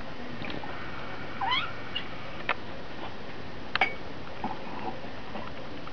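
Two kittens wrestling: a short, high squeak about a second and a half in, and a few sharp clicks and taps scattered through, over a steady hiss.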